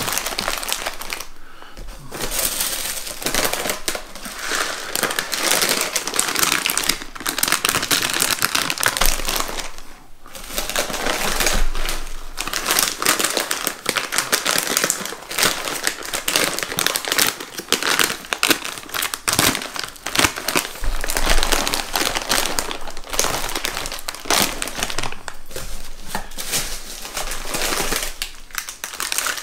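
Plastic snack packets crinkling as they are handled and set down, with tissue paper rustling in a cardboard box. The crinkling runs almost without a break, with a few short lulls.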